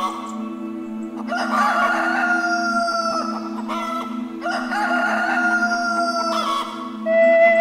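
Rooster crowing twice, each crow about two seconds long, over soft background music with a steady low drone.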